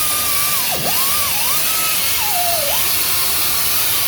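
Handheld power tool spinning a cleaning attachment against a truck's front wheel hub and brake mounting surfaces to scrub off rust and dirt. Its steady whine sags in pitch several times as it is pressed into the metal.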